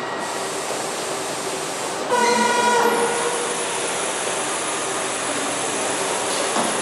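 Steady assembly-line machinery noise from industrial robots handling a car body shell. About two seconds in there is a brief buzzing tone lasting under a second.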